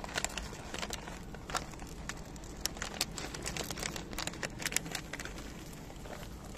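Plastic cat-food bag crinkling in a run of irregular sharp crackles as it is handled and dry kibble is shaken out of it.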